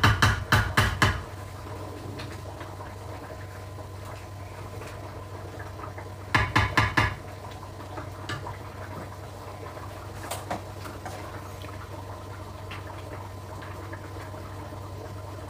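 Spatula scraping and knocking in a frying pan of simmering chicken curry: a quick run of strokes, about six a second, in the first second and another about six seconds in. Between them a low steady hum and a few faint clicks.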